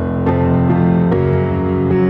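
Grand piano playing sustained chords, with fresh chords struck about a quarter second and about a second in.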